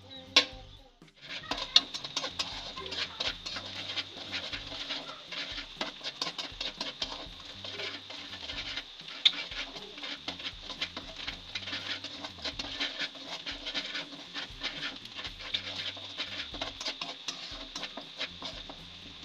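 Chopped onions sizzling and crackling in hot oil in a metal karahi as they fry to light brown. The sizzle starts about a second in, with a couple of louder pops.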